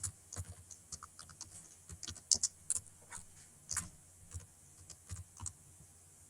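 Typing on a computer keyboard: a quick, irregular run of key clicks that stops about five and a half seconds in.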